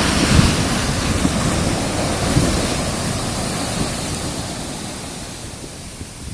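Ocean wave breaking on the beach: a loud rush of surf right at the start that slowly fades as the wash runs out, with wind buffeting the microphone.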